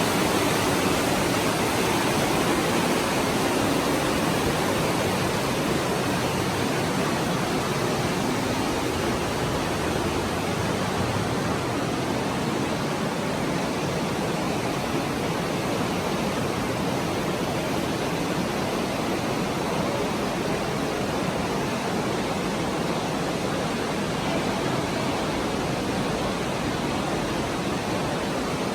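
Steady, even rushing of water, like a stream flowing through a cave, with no breaks.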